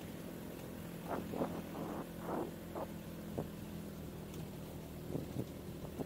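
A 4x4 pickup truck's engine running steadily as it drives along a sandy track, with several short knocks and rattles about one to three seconds in and again near the end.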